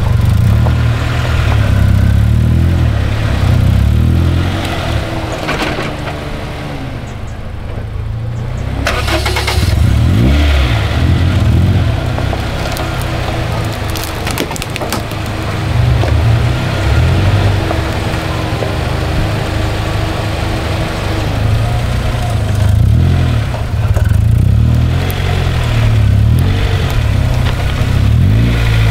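Car driving along a rough dirt trail: a steady low engine and road rumble, with the engine revving up about ten seconds in.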